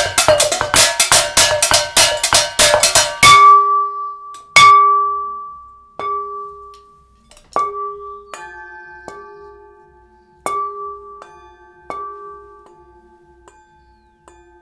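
Ringing metal household objects played as percussion: a fast run of strikes stops abruptly about three seconds in. Single struck notes follow, about one every second and a half, each left to ring out and fade. From about halfway through, a lower ringing tone with a slow wavering beat keeps sounding under the strikes.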